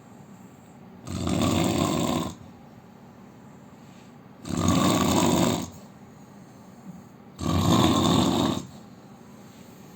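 A sleeping man snoring: three snores, each just over a second long, coming about every three seconds.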